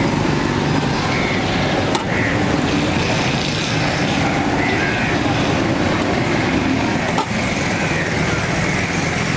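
Steady street din: road traffic running with indistinct voices mixed in, and two short sharp clicks, one about two seconds in and one about seven seconds in.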